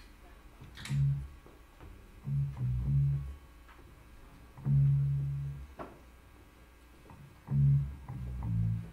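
Amplified electric guitar plucking short low notes in four separate groups of about a second each, with quiet gaps between them: the loose playing of a guitarist checking or tuning between songs rather than a song in progress.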